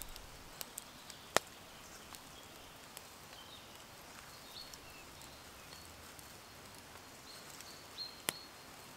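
Quiet outdoor ambience with a few sharp small clicks from close handling of a knife and bread roll, the loudest about a second and a half in and another near the end, and faint high bird chirps now and then.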